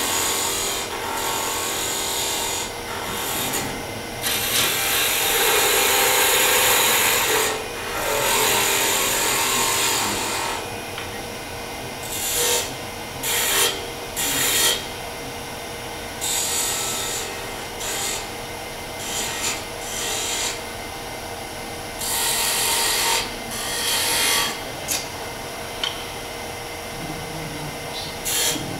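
Wood lathe running with a steady hum while a hand-held turning tool cuts a small spinning wooden spindle, making a hissing scrape of wood being cut. The scrape comes in passes: two longer cuts of about three seconds each in the first ten seconds, then a string of short ones.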